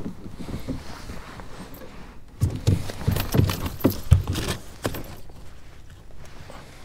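A cluster of irregular knocks and rattles in the middle, as a small largemouth bass hooked on a spinnerbait is landed and handled aboard a kayak.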